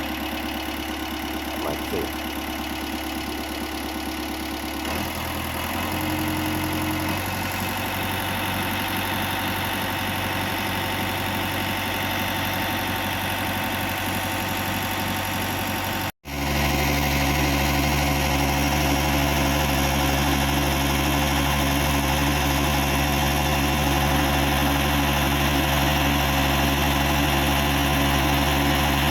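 Komatsu PC78US excavator's diesel engine idling while it warms up before work, a steady hum. About five seconds in the engine note steps up a little; after a split-second gap about halfway through, it runs on louder and steady.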